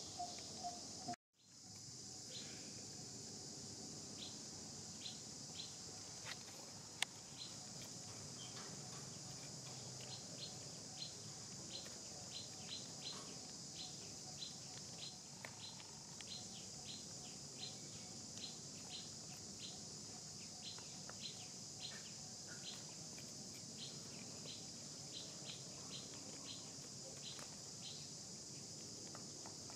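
Outdoor ambience: a steady high insect drone, with a short high chirp repeated about twice a second.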